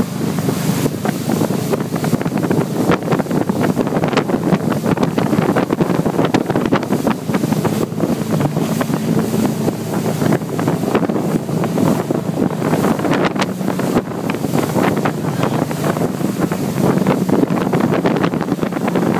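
Motorboat running at speed towing a tube, with wind buffeting the microphone and the rush of churning wake water; a low, steady engine hum sits under the noise.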